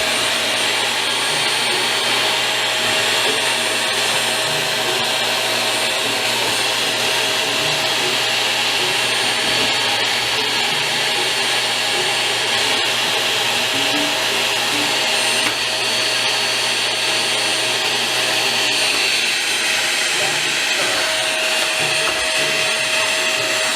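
Vacuum cleaner motor running steadily, a constant rushing noise with a steady whine.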